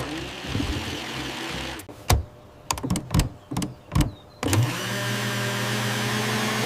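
Electric blender: a hiss for about the first two seconds, then half a dozen sharp knocks, then the motor spins up about four and a half seconds in and runs with a steady hum.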